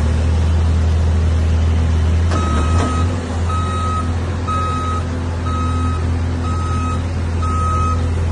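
Backhoe loader's diesel engine running steadily, with its reversing alarm starting a little over two seconds in and beeping about once a second at one pitch. A brief clatter comes just before the first beep.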